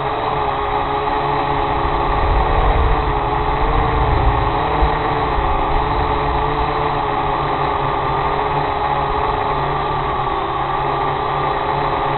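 Small camera drone's motors and propellers, heard from its onboard microphone: a steady buzzing whine that wavers slightly in pitch as the motors adjust, over a low rumble of air on the microphone that swells a couple of seconds in.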